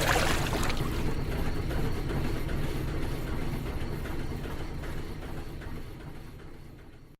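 A brief rushing whoosh, then a steady low rumble that slowly fades away to nothing.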